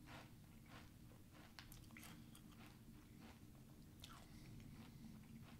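Faint crunching of a mouthful of Quaker Vanilla Life cereal in milk being chewed, a crisp crunch every half second or so.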